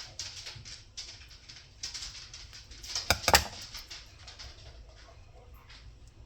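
Instant-ramen seasoning packet crinkling and rustling in the hands as it is worked open, in quick irregular crackles, with a louder crinkle about three seconds in.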